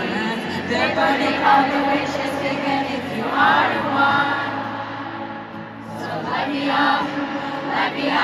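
Live pop concert music with many voices singing along together, a stadium crowd joining in with the song.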